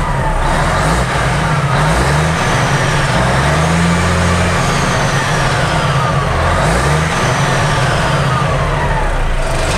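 Diesel engine of a 1996 Ford L9000 truck running and being revved up and down several times, heard from inside the cab.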